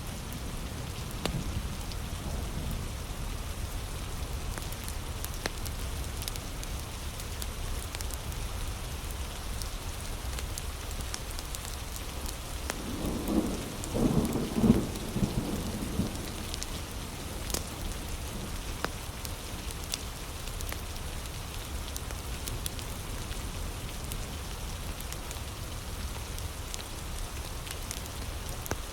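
Steady heavy rain, with a low rumble of thunder swelling for about three seconds near the middle. Sharp crackles from a wood fire are scattered through it.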